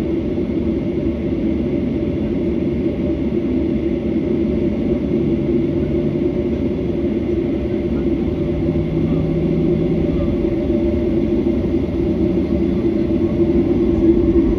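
Jet airliner's engines running at taxi power, heard inside the cabin as a steady hum over a low rumble, growing slightly louder near the end.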